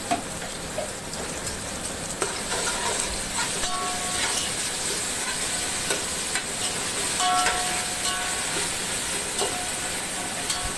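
Onions, chillies and whole spices being mixed by hand in a pressure cooker pot: a steady hiss with soft scraping and a few short, light metallic clinks.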